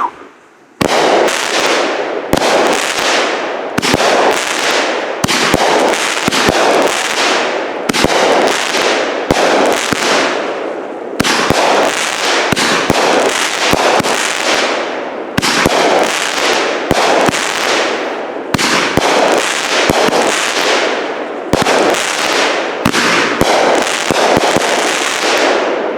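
A 200-gram consumer firework repeater cake firing shot after shot. A sharp report comes about every second or less, with the noise between them hardly letting up, and it trails off near the end.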